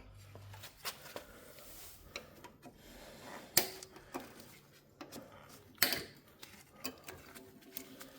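A few sharp clicks, two of them louder, over light handling noise: cable ties being snipped off a car's coolant overflow tank and its hose with cutters as the tank is freed.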